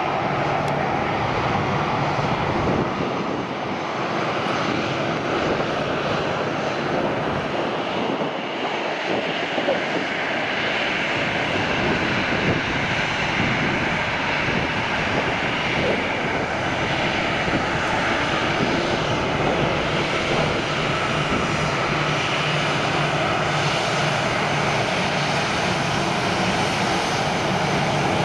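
Delta Airbus A320-212's twin CFM56 turbofan engines running at taxi idle as the airliner taxis, a steady jet engine noise.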